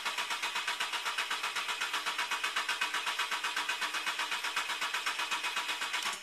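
Volkswagen engine cranking on its starter motor with a fast, even rhythm, turning over without catching, then stopping abruptly near the end. This is a no-start that the owner's mechanic puts down to a bad solder joint on the ECU.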